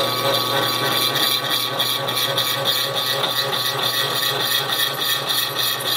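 Milling machine spindle turning a slitting saw with some teeth missing, cutting a slot in a small brass rod. A steady machine hum with a fast, even chatter from the cut.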